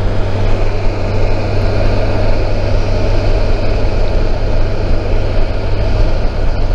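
Kawasaki Versys 1000 SE's inline-four engine running at a steady speed while riding, with an even rush of wind and road noise.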